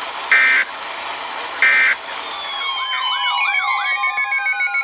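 Two short bursts of Emergency Alert System data tone, about a second apart: the end-of-message signal that closes the broadcast warning. Then, from about two seconds in, several electronic siren-like tones overlap, warbling and sweeping up and down.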